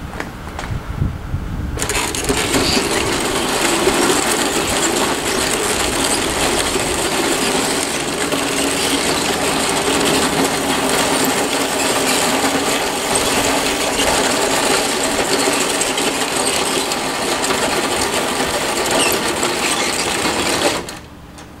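Scratch-built RC bulldozer's drive whining and its tracks clattering on concrete as it tows a wagon with a grown man sitting in it. It starts about two seconds in, runs on steadily under load, and cuts off suddenly near the end.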